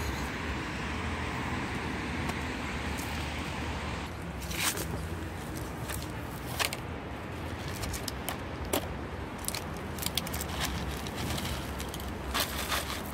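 Cat eating dry kibble, with scattered sharp clicks and crackles from the crunching food and the handled plastic tub and food bag, heard from about four seconds in over a steady background hum.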